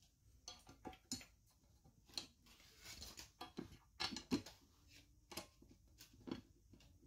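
Faint, irregular small clicks and soft rustling from hands handling an office chair's metal seat mechanism and fitting a bolt into the seat underside, the sharpest clicks a little past the middle.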